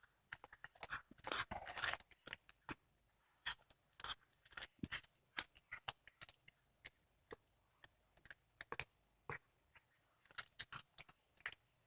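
Domestic cat chewing and crunching on a squirrel carcass: faint, irregular wet crunches and clicks of teeth on bone and flesh.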